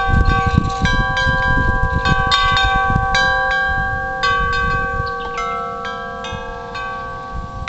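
Wind chimes ringing in gusty wind, several pitches struck over and over and left to ring on. Wind rumbles on the microphone, easing toward the end.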